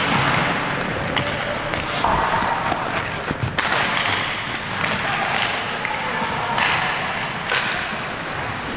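Ice hockey game sounds: skates scraping the ice under a steady rink hiss, with a few sharp knocks of stick and puck and voices calling out.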